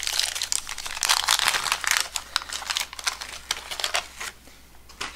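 Wax wrapper of a 1989 Topps baseball card pack being torn open and crinkled by hand, a dense crackling that thins out about four seconds in.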